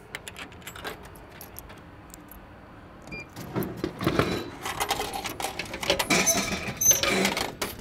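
Drink vending machine dispensing a bottle: a low thud as it drops into the tray about three and a half seconds in, then clattering and knocking as the retrieval flap is pushed open and the bottle is pulled out, with a few light clinks.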